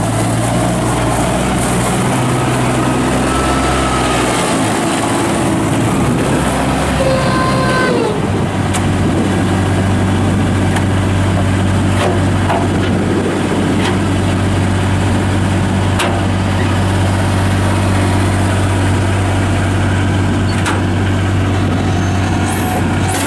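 Bobcat 643 skid steer's Kubota diesel engine running. Its note shifts about four to eight seconds in, with faint whines gliding up and down, then holds steady, with a few sharp clicks or knocks later.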